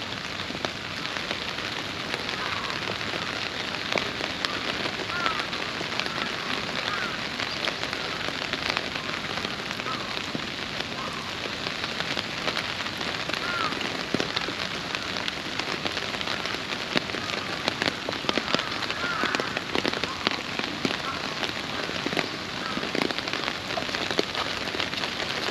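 Steady rain falling, with many small drop ticks landing on a clear plastic umbrella overhead.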